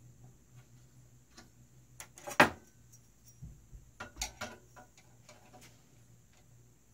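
Light metallic clicks and taps from hands working clamps and a metal ruler against an aluminium 3D-printer frame, with one sharp click about two and a half seconds in and a quick run of ticks around four seconds. A faint low hum runs underneath.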